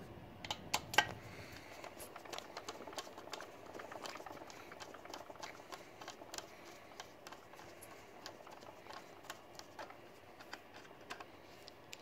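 Faint, irregular clicks and ticks of a screwdriver backing out the screws that hold a diesel heater's control module, with a few sharper clicks in the first second.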